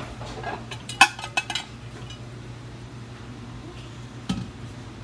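Kitchen tongs clinking against the stainless steel inner pot of an Instant Pot as cooked chicken is lifted out. There is one sharp clink about a second in and a few lighter ones just after it, then a dull knock near the end, over a steady low hum.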